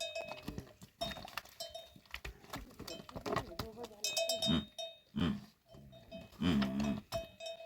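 Livestock bells clanking again and again, with a few bleats from the flock in the second half.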